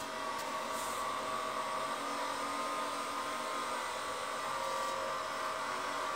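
Steady whirring hum of an electric motor running, a broad hiss with a few constant tones in it.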